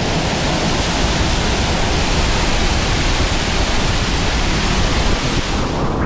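Waterfall heard at close range from behind its falling curtain: a loud, steady rush of water pouring down.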